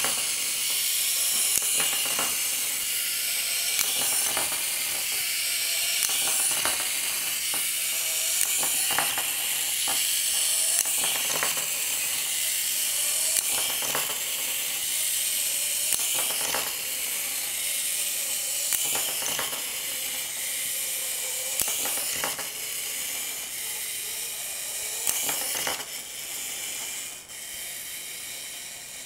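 Clockwork mainspring motor of a PLATZ wind-up Blue Impulse T-4 acrobatic toy plane, whirring as its gears unwind. A knock comes about every one and a half seconds as the little plane tumbles against the wooden floor. The whirr grows quieter over the last few seconds as the spring runs down.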